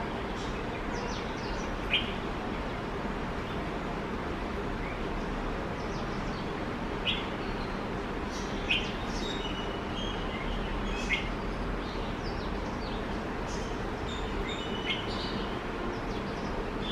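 Birds chirping: a few brief, high chirps scattered through, over a steady background noise.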